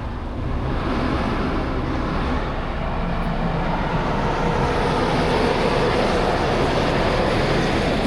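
Semi-truck running and driving, a steady rumble of engine and road noise that swells about half a second in and then holds level.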